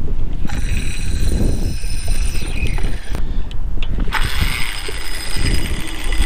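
Fishing reel whirring as line pays out on a cast. The first run falls in pitch as the spool slows, and a second whir follows about a second later. Low wind rumble on the microphone sits underneath.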